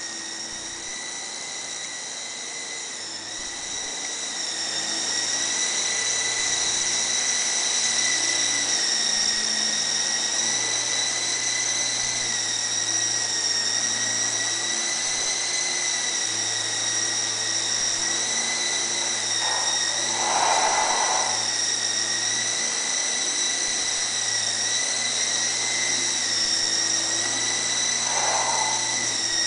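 Mini coaxial RC helicopter's small electric motors and rotors whining steadily at a high pitch while it flies, growing louder about five seconds in.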